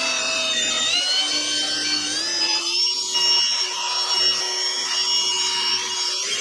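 Rotary machine polisher running on a car's paintwork with heavy-cut compound, its motor whine stepping up in pitch about a second in and again about two seconds in as the speed setting is raised, then holding steady.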